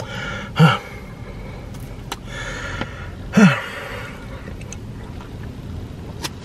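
A man chewing a mouthful of deep-dish pizza, with faint wet mouth clicks, and letting out two short moans that fall in pitch, about half a second in and again about three and a half seconds in.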